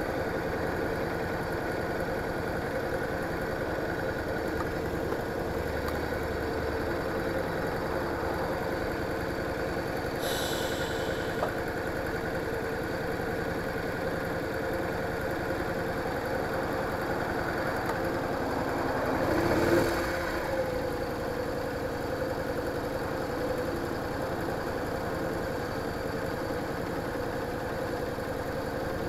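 Yamaha DragStar Classic's V-twin engine idling steadily at a standstill. About two-thirds of the way in, a louder swell rises and falls with a dropping pitch.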